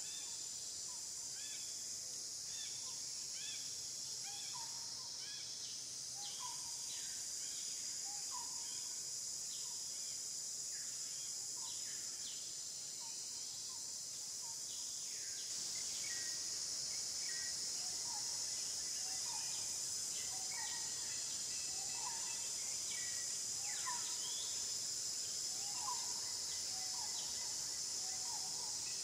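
Outdoor ambience: a steady high-pitched insect drone, with short bird chirps repeating about once a second.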